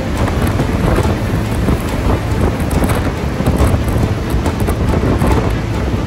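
Gale-force mountain wind, gusting to about 70 mph, buffeting the microphone as a loud, unbroken rumble that swells and eases with the gusts.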